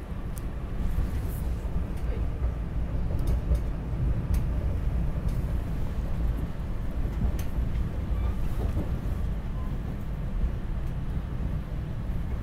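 Steady low rumble of a SEPTA Regional Rail commuter train running, heard from inside the passenger car, with a few sharp clicks and rattles.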